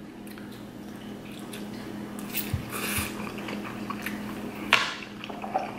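Close-up eating sounds of a man eating spicy Shin Black instant ramen noodles: soft chewing and wet mouth sounds, with two short hissy sounds about two and a half and nearly five seconds in, and a couple of faint low knocks.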